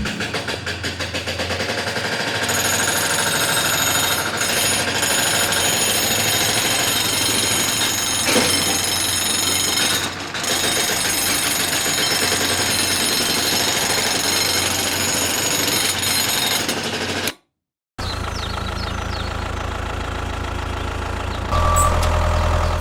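A small machine running with a fast, even mechanical rattle. It cuts out abruptly for a moment near the end, then starts again.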